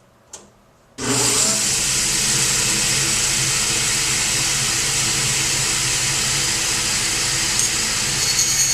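Table saw switched on about a second in, its motor coming up to speed and then running steadily with the blade spinning free.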